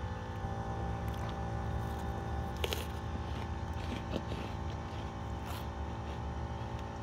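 Steady hum of construction machinery running, several low tones held without change, with a few faint clicks about three and five and a half seconds in.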